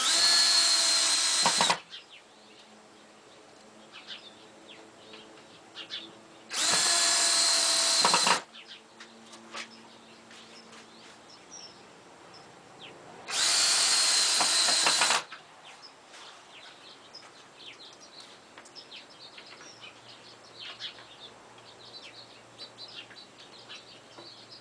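Electric drill boring pocket holes into wood through a pocket hole jig, running in three bursts of about two seconds each, with faint handling clicks between them.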